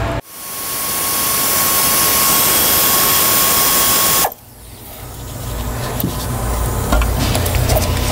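Air ratchet spinning out an intake manifold bolt: a steady hissing whir with a thin steady tone that cuts off sharply about four seconds in. Small clicks and knocks of parts being handled follow.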